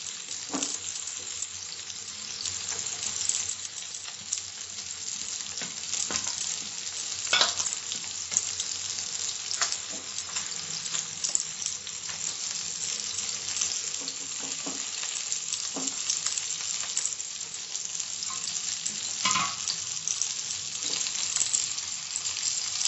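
Spice-stuffed mackerel shallow-frying in hot oil in a nonstick frying pan: a steady sizzle with scattered sharper crackles of spitting oil.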